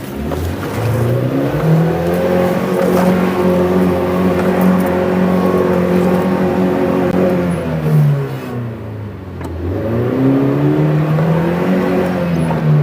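Engine of a 2015 Leopaard Black King Kong 2.2 four-wheel-drive SUV under acceleration: its pitch climbs and holds high, drops about eight seconds in, then climbs again and falls away near the end.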